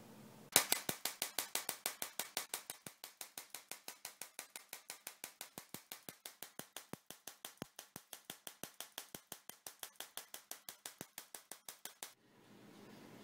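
Homemade flyback-driven Tesla coil sparking: sharp snaps of spark discharge in a steady rapid series, about eight a second, loudest at first and stopping abruptly about twelve seconds in.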